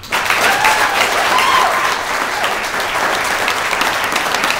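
Audience bursting into loud applause all at once, dense clapping with a few shouts and cheers over it in the first couple of seconds.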